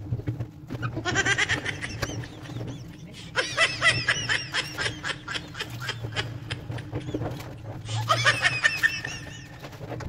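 High-pitched laughter in three bouts, about a second in, from about three and a half seconds, and near the end, over the splashing and rubbing of clothes being scrubbed by hand in a bucket of water.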